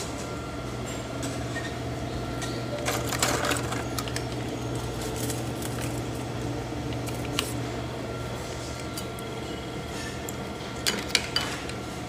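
A steady low machine hum, with a few light clicks and knocks.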